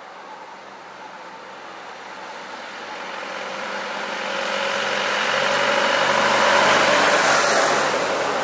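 A road vehicle approaching and passing close by: engine and tyre noise builds over several seconds, is loudest about seven seconds in, then fades.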